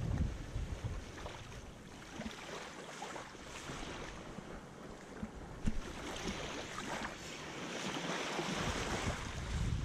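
Small waves washing at the water's edge, with wind rumbling on the microphone, heaviest at the start and again near the end. Now and then a sharp click, the loudest a little past halfway, from a golden retriever gnawing a stick close by.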